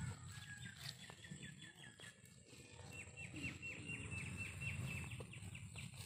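A bird calling: a quick run of short notes about half a second in, then a longer series of short, evenly spaced chirps, about three a second, from about three seconds in. A steady low rumble lies under it.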